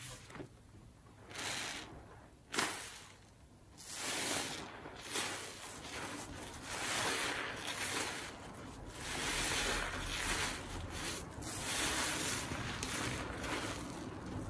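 A soapy kitchen sponge squeezed and wrung by gloved hands in a tub of Ajax suds: wet, sudsy squishing in repeated swells of about a second each. It is quieter for the first few seconds, then louder and more continuous.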